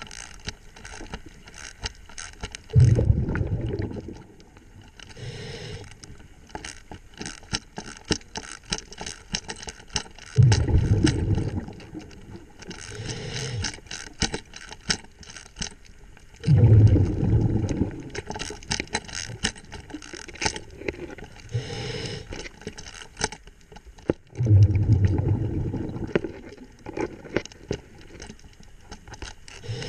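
A diver breathing through a scuba regulator underwater: four low bubbling exhalations about seven seconds apart, with softer hissing inhalations between them. Many small sharp clicks run throughout.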